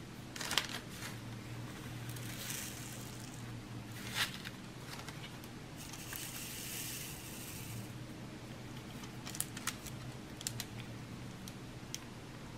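Quiet handling of diamond-painting drills and their plastic tray: a few light, scattered clicks and two short rustling hisses, over a low steady hum.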